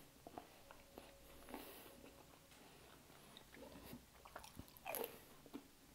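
A person chewing microwave fries: faint mouth sounds with small clicks, and a louder mouth noise about five seconds in.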